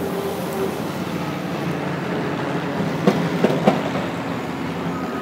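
A heavy vehicle's engine running steadily, with three sharp metallic clanks in quick succession a little after three seconds in.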